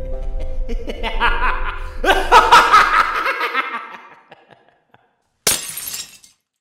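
Ambient music with a low drone fades out under a loud burst of laughter. About five and a half seconds in comes a sudden sharp crack like breaking glass, a sound effect for the mirror shattering, which dies away within a second.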